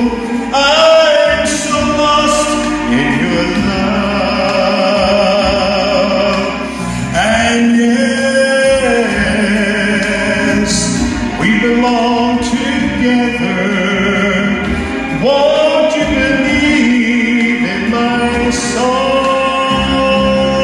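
A man singing a slow love ballad into a microphone over musical accompaniment, holding long notes with vibrato.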